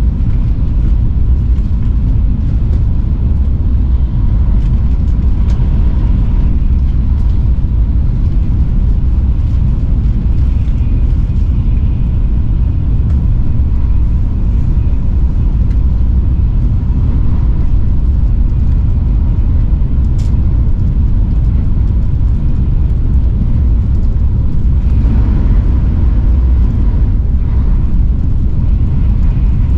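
Steady low rumble of a Shinkansen bullet train running at speed, heard from inside the passenger cabin, with a faint steady whine above it. A single sharp click about two-thirds of the way through.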